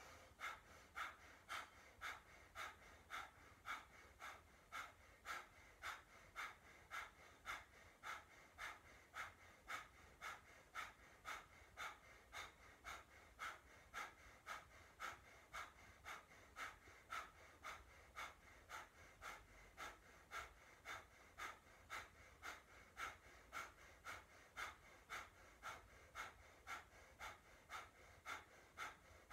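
A woman doing breath of fire: rapid, forceful exhalations through the nose, pumped from the navel in an even rhythm of about two breaths a second.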